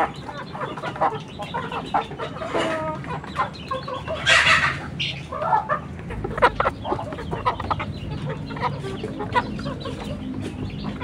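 A flock of free-range village chickens clucking and calling, with one louder, harsher call about four seconds in.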